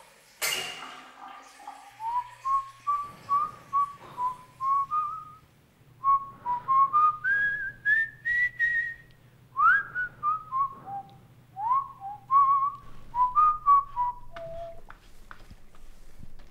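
A person whistling a slow tune of short notes, some sliding up in pitch, over a low steady hum. The tune is soundtrack whistling. A brief rush of noise comes just after the start, and the whistling stops a little before the end.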